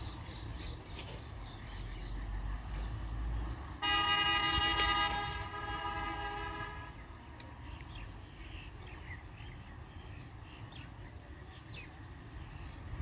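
A vehicle horn sounding one long blast of about three seconds, starting about four seconds in, over a low rumble of traffic.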